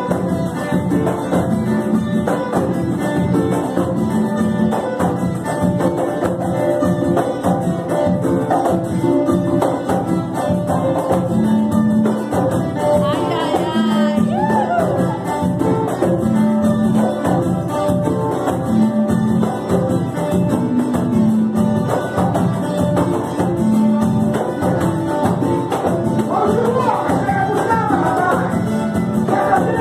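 Live samba chula: acoustic guitars strummed over a steady tambourine and hand-drum beat, with voices singing at times, about midway and again near the end.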